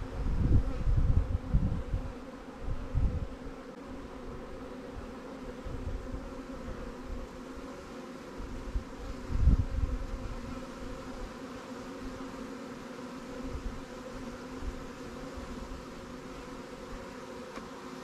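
Honey bees humming steadily around an open hive, a dense buzz with several pitches held together. A few low thumps cut in, mostly in the first three seconds and once loudly about nine seconds in.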